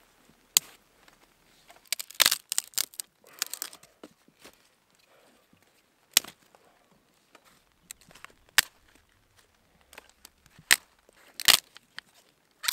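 Dry dead willow sticks being snapped by hand: a string of sharp cracks, with a quick cluster of them about two seconds in and single snaps every couple of seconds after.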